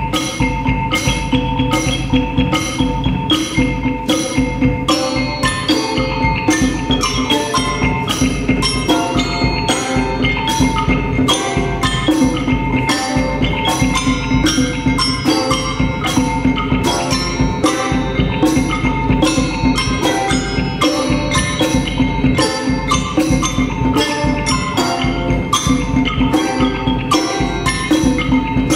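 A live percussion ensemble playing: many quick pitched mallet notes over a steady pulse of sharp strikes, with a held tone sounding underneath.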